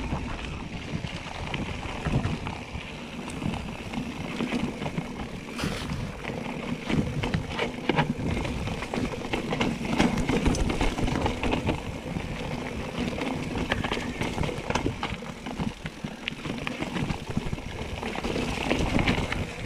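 Bicycle rolling over a rough dirt and stone trail: crunching tyres and irregular rattling clicks from the bike, over a low rumble of wind on the microphone.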